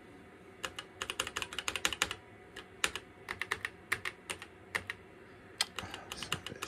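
Keys pressed on a Toshiba T3200SX laptop's keyboard: three quick runs of clicking keystrokes with short pauses between them.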